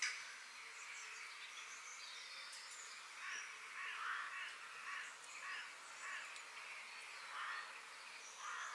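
Forest ambience of birds calling over a steady hiss: a run of short, harsh calls from a few seconds in, with thin high chirps above. A short sharp click comes right at the start.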